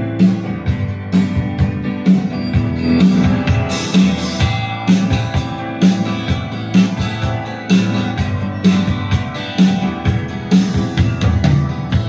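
Live acoustic guitar playing a song's instrumental intro, over a low pulse that recurs about once a second.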